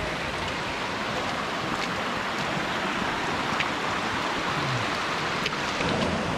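A steady rushing noise, with a few light sharp clicks about every two seconds that fit trekking-pole tips striking rock.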